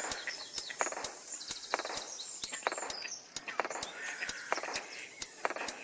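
Short high peeps, likely from mallard ducklings, over a run of sharp irregular clicks several times a second.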